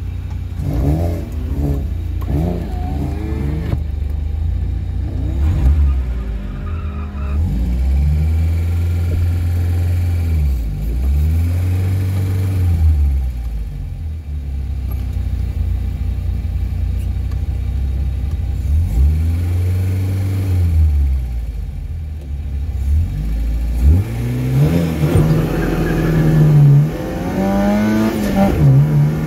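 Car engines revving in a series of blips at standstill on a drag-strip start line. Near the end an engine accelerates hard off the line, its pitch climbing, dropping at a gear change, then climbing again.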